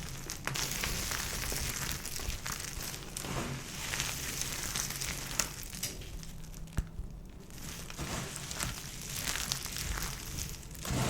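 Dry soap crunching and crackling, with two sharper snaps a little past the middle.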